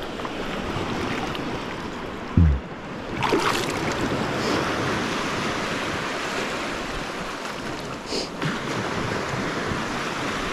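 Shallow ocean surf washing and sloshing steadily around the legs of a wading angler, with a splash just after three seconds in. A brief low thump about two and a half seconds in is the loudest moment.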